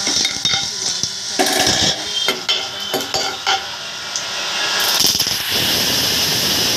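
A metal spoon clicks and scrapes in a pan of hot oil with cumin seeds and dried red chillies. About five seconds in, a loud steady sizzle starts as leaves and a ground mixture are tipped into the hot oil.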